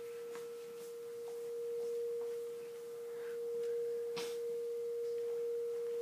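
Steady pure tone of about 440 Hz (the note A) from two loudspeakers fed the same signal. It swells and fades slowly as the listening position moves through the loud and quiet spots where the two waves add and cancel. A faint click about four seconds in.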